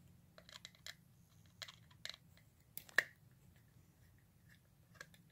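Light clicks and taps of a 1/64 diecast model car on its plastic display base being handled and turned over, with one sharper click about three seconds in.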